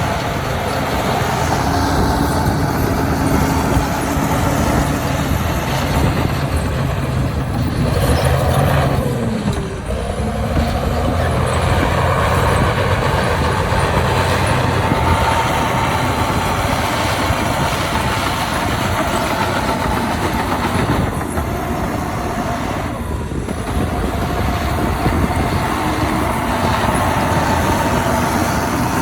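Heavy diesel engine of earthmoving machinery running steadily under load, its sound dipping briefly about ten seconds in and again near twenty-three seconds.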